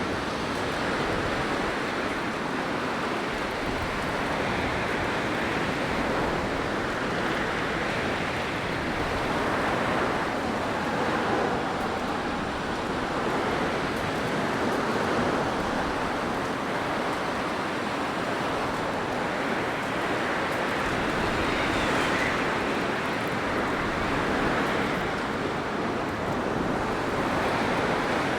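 Blizzard wind blowing in a steady rush of noise that swells and eases in slow gusts every few seconds.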